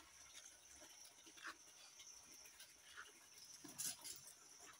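Near silence: faint outdoor background with a steady faint high tone and a few light taps.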